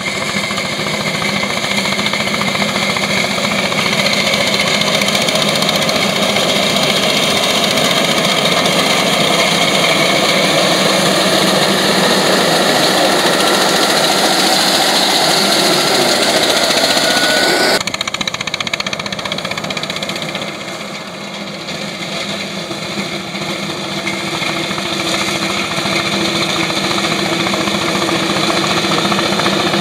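Tractor engine running under load while its front-mounted reaper cuts through standing cane: loud, steady mechanical noise. A faint whine rises slowly, then the sound changes abruptly a little past halfway and carries on steady.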